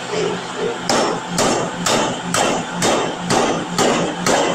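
Power forging hammer striking a glowing hot steel workpiece on the anvil, starting about a second in and going on in a steady rhythm of about two blows a second. A steady low machine hum runs underneath.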